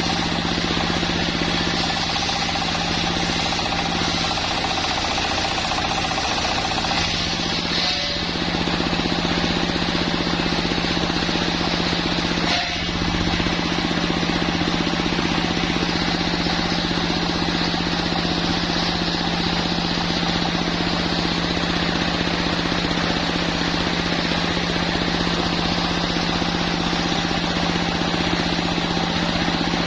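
Sawmill machine running steadily with a constant mechanical hum, with a brief click about thirteen seconds in.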